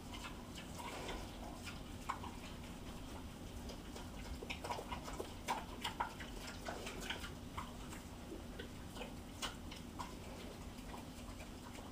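Pigs eating from metal bowls: irregular wet chewing and smacking, with sharper clicks now and then, busiest around the middle.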